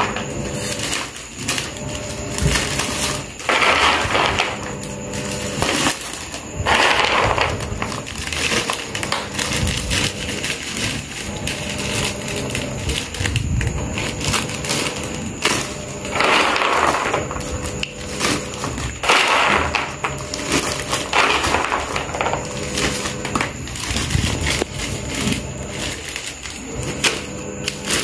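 Crisp fried kuih siput rattling and a thin plastic bag crinkling as handfuls of the snack are scooped from a plastic tub and bagged, in rustling bursts every few seconds.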